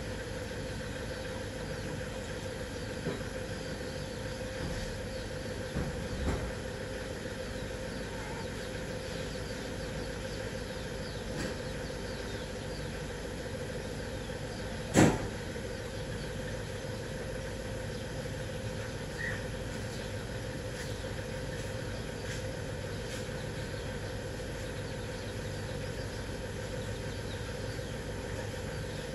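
A steady motor hum, like an idling engine, with a single sharp knock about halfway through and a few fainter clicks.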